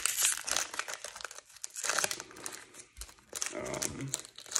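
Foil wrapper of a hockey card pack being torn open and crumpled in the hands: a run of sharp crinkles and rips, with a short lull about a second and a half in.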